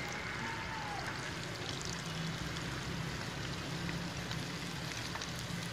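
A batter-coated chicken pakora piece deep-frying in hot oil in a wok: steady sizzling and bubbling with small pops.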